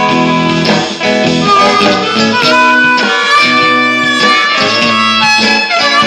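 Blues jam on a Hohner Marine Band diatonic harmonica over a rhythmically strummed guitar, with several harmonica notes bending in pitch.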